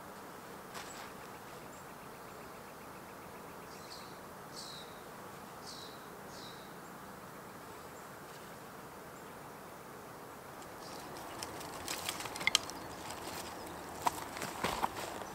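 A bird gives several short falling whistled calls over a steady outdoor hiss, with a faint fast trill early on. From about eleven seconds in, dry brush and sticks crackle and snap as they are gathered and handled, the loudest sounds here.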